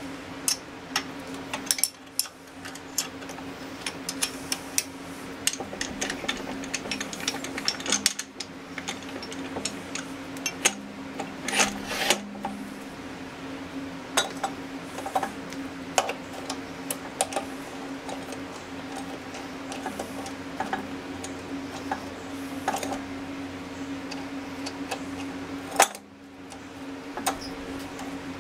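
Irregular metal clinks and knocks as a studded steel plate is handled and set into a small lathe's four-jaw chuck and adjusted by hand, over a steady low hum.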